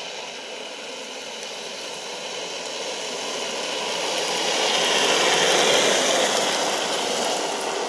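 Engineless downhill gravity kart rolling on asphalt: a rushing tyre-and-wheel noise with no engine note, growing as the kart approaches and loudest as it passes close, about five to six seconds in, then easing.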